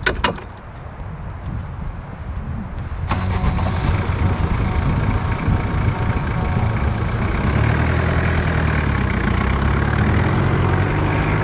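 A metal clunk at the rear of a Jeep Cherokee XJ, then about three seconds in its engine comes in suddenly and runs steadily as the Jeep pulls away.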